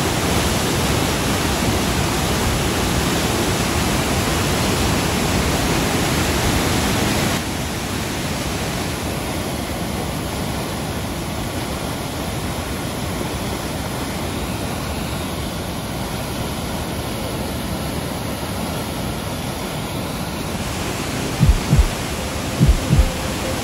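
Flash-flood water roaring and rushing over rock, a loud steady rushing roar. About seven seconds in it drops to a quieter steady rushing noise. Near the end, a few deep, evenly paced thumps come in.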